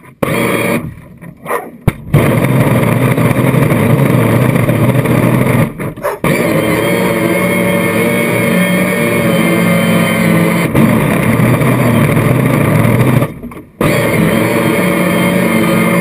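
Radio-controlled model boat's motor running steadily with a constant pitch. It cuts out briefly about six seconds in and again near the end before running on.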